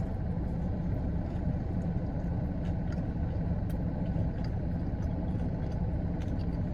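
A person chewing a bite of fried chicken sandwich, with faint mouth clicks, over a steady low background rumble.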